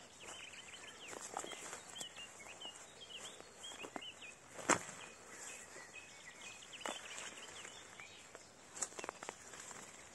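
Songbirds singing with many short high notes throughout, over slow footsteps through grass and undergrowth. A single sharp crack about halfway through is the loudest sound.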